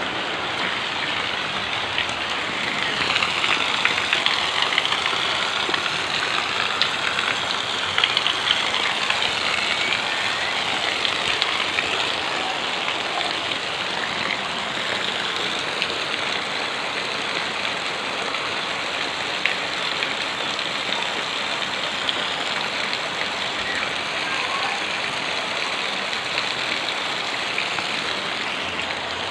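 Heavy rain falling steadily, a dense even hiss, swelling louder for several seconds near the start.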